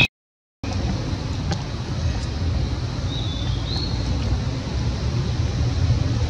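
Steady low outdoor background rumble, with two short faint high chirps about three seconds in. A half-second gap of silence comes right at the start.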